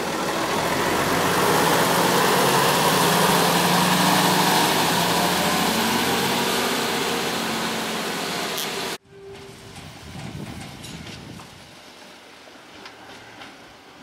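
Diesel railbus of ÖBB class 5081 running past close by, its engine and running noise loud and steady, easing slowly as it pulls away. The sound cuts off suddenly about nine seconds in, leaving a much quieter background.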